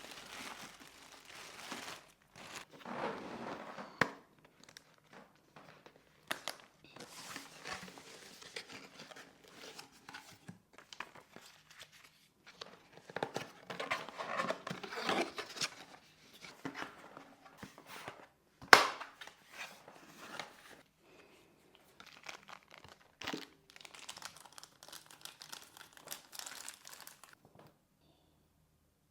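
Packaging being handled during an unboxing: plastic and paper crinkling and rustling in irregular spells, with a few sharp clicks and knocks, the loudest about two-thirds of the way through.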